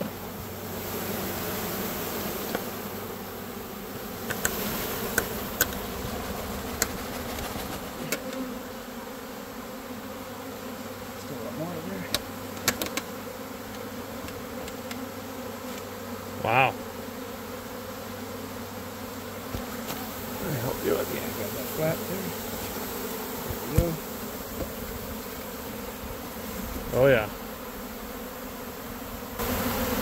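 Swarm of honey bees buzzing steadily around an open hive as they are shaken in from a box, with scattered light knocks and taps.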